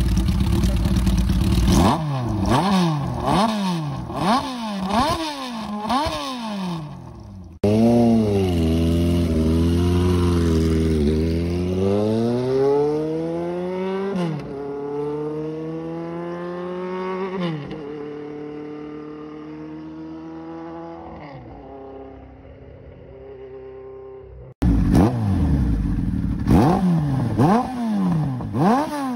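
Kawasaki Zephyr 750 air-cooled inline-four engines with aftermarket exhausts, revved in quick blips about once a second at a standstill. In the middle, after a cut, a motorcycle accelerates up through the gears, its note climbing, dropping at a shift and climbing again, then settling and fading; near the end the revving blips of a second Zephyr start up.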